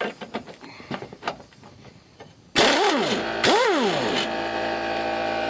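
Impact wrench run in two short bursts on a rusted axle bolt soaked in PB Blaster, its pitch rising and falling each time, after a few faint clicks. A steady machine hum starts with it and keeps going.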